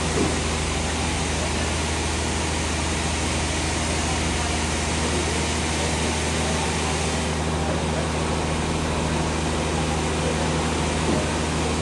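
Sawmill machinery running steadily: a continuous drone with a low hum. The upper hiss eases slightly about seven seconds in.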